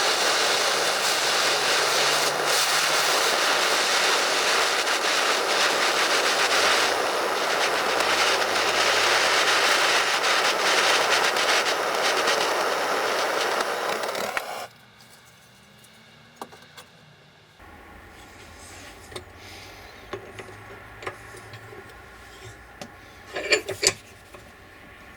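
A heating tool blowing with a steady rushing noise as the seized piston of a grease-gun oiler is heated to free it, cutting off suddenly about 15 seconds in. After that it is quiet apart from small clicks and a few light metal taps near the end.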